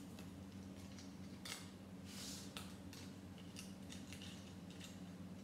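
Faint clicks and rubbing of small plastic Airfix Quickbuild bricks being handled and pressed together, a few sharp clicks at irregular moments over a steady low hum.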